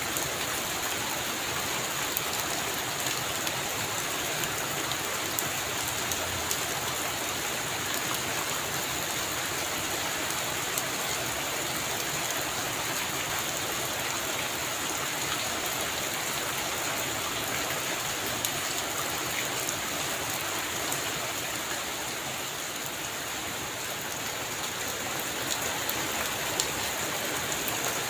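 Steady heavy rain falling, a dense hiss with scattered close drop ticks, easing slightly a little past the middle before picking up again.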